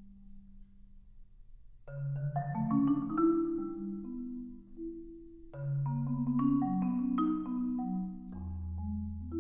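Solo fingerstyle acoustic guitar playing a quiet instrumental: after a soft held low note, quick runs of picked notes climb upward twice, and a deep bass note sounds near the end.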